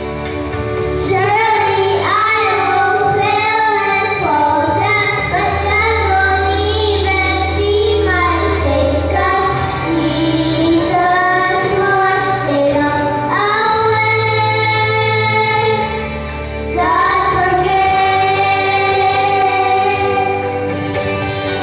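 Two children singing a duet through handheld microphones over instrumental accompaniment, with a brief pause between phrases about two-thirds of the way through.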